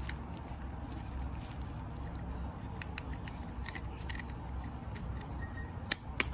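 Plastic packaging of a wireless-earbud set being handled and opened: scattered small clicks and crinkles, with one sharp click near the end.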